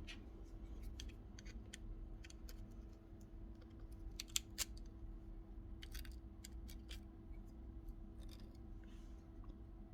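Scattered small clicks and taps of the opened cordless drill's parts being handled and worked at the switch, with two louder clicks a little after four seconds in, over a faint steady hum.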